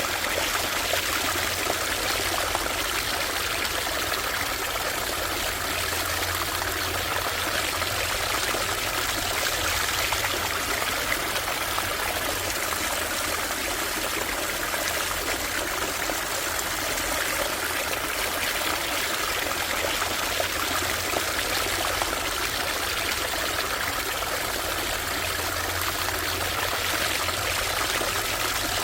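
A small stream running and trickling steadily.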